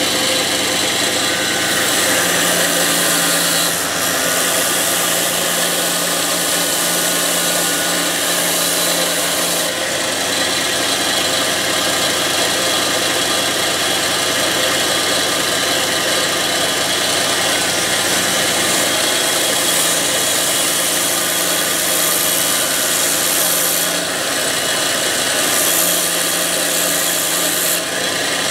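Belt sander with a 120-grit belt running steadily while a knife's rough handle scales are ground down against it. The grinding hiss gets louder in stretches, about 2 to 10 seconds in and again twice in the last third, as the knife is held to the belt.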